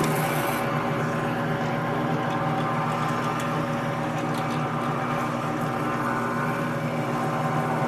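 Floor-standing drill press running at a steady speed, an even motor hum, as the bit is fed down through a wooden bass guitar body to drill small pilot holes.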